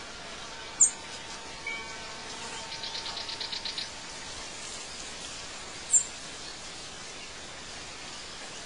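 Outdoor night ambience: a steady hiss, with two short, sharp high chirps about five seconds apart and a brief rapid trill about three seconds in. The chirps are the loudest sounds.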